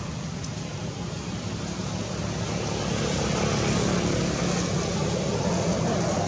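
A steady engine drone, growing louder about halfway through.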